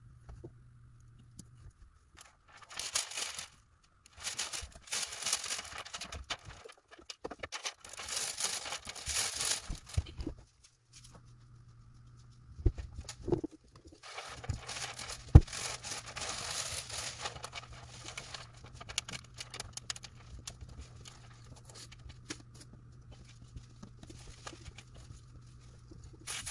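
Window tint being worked onto the wet inside of a windshield: long bursts of hissing and rubbing against the glass, with a couple of sharp knocks, over a steady low hum.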